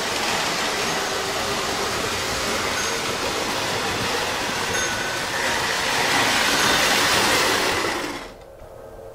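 Lionel O-gauge toy trains running on three-rail track: a steady rolling rumble of metal wheels and motors that swells as a steam locomotive and its tender pass close by, then cuts off abruptly near the end.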